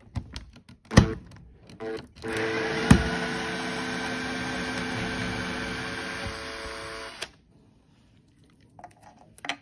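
A cordless drill backs a wood screw out of a pine board, its driver bit pressed through a patch of duct tape over the screw head for grip. A few clicks and a sharp knock come first, then the drill motor runs steadily with a whine for about five seconds and stops suddenly; a couple of light knocks follow near the end.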